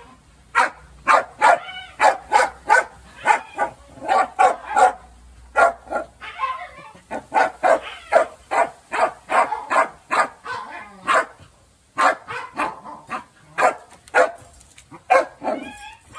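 Dog barking in a long run of short, sharp barks, about two a second, breaking off briefly about eleven seconds in and then starting again.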